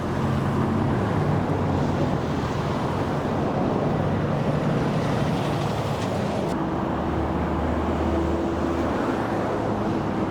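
Steady noise of a car driving: road noise with a low engine hum that shifts in pitch.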